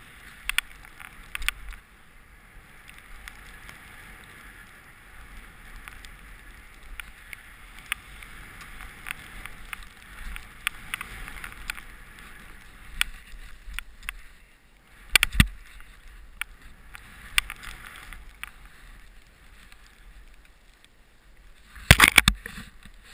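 Snowboard riding through deep powder: the board hissing through the snow, swelling and fading with each turn. Scattered sharp knocks come through, with a louder one about fifteen seconds in and the loudest cluster near the end.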